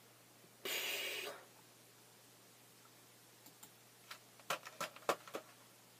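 A short hiss about a second in, then a run of about six light, sharp clicks over the last two and a half seconds.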